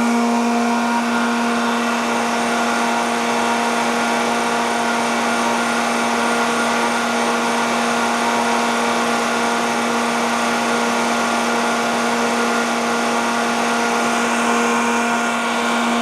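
Sullivan Palatek 30D7 30 hp air-cooled rotary screw air compressor running steadily under load with a constant hum, pumping up its receiver tank.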